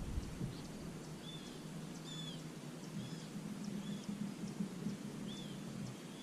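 A bird calling faintly in short arched chirps, about one a second, over quiet outdoor background with a faint low steady hum.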